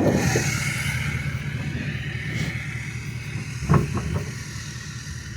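Pickup truck engine running steadily and growing fainter, with a few short knocks a little past the middle.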